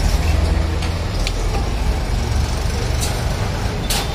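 Steady low rumble of background noise, with a few light clicks and knocks.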